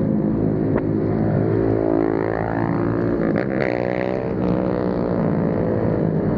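Motorcycle engines running, one revving up in pitch about two seconds in and falling back again a second or so later.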